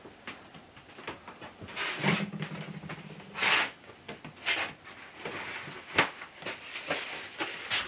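Quiet handling noises as a small bag of lathe parts is picked up and opened: scattered rustles and light knocks, a short steady buzz about two seconds in, and one sharp click near six seconds.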